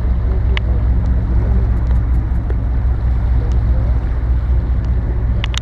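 Charter fishing boat's engine running steadily, a low drone heard from on deck, with a few short clicks near the start and near the end.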